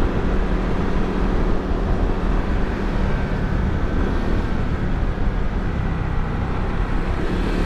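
Motor scooter engine running steadily at cruising speed, with wind noise rushing over the microphone.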